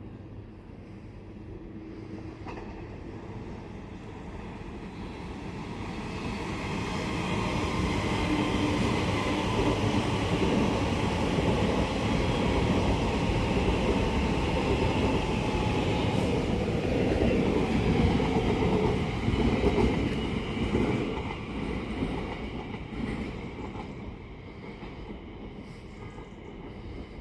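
A train passing on the line: it grows louder over several seconds, runs loudest for about twelve seconds with a steady high whine over the rumble of the wheels on the rails, then fades away.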